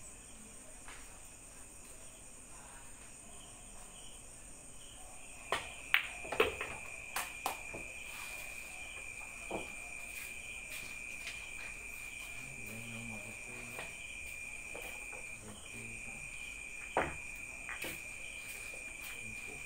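Sharp clacks of pool balls striking one another, a quick cluster of them about six seconds in and another loud clack near the end as the balls are gathered for the next rack. Under them runs a steady high chirring of crickets that starts about five seconds in.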